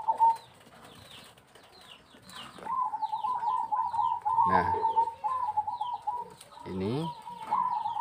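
Zebra doves (perkutut) cooing: long trilled coos set in about two and a half seconds in and run on with a short break, over a steady run of short, high, falling chirps from other birds.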